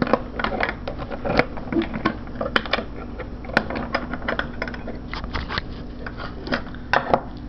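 Laminated steel padlock being unlocked and taken off the metal hasp of a wooden tool chest: a string of irregular metallic clicks, rattles and knocks.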